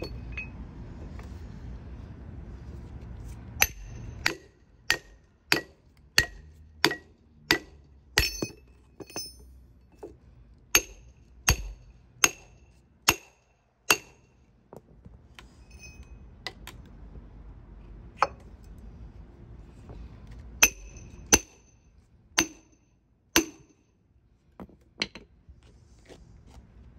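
Steel splitting wedges being driven into the end of a hickory round with a hammer: sharp metal-on-metal strikes that ring, in runs of about one every two-thirds of a second with short pauses between, splitting the round open along its cracks.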